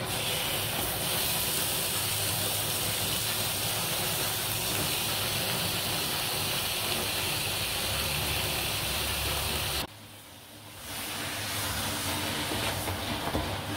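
Raw chicken pieces sizzling in a hot wok on fried biryani spice paste, a steady hiss. It cuts off abruptly about ten seconds in and comes back less strongly a second later as the chicken is stirred with a wooden spatula.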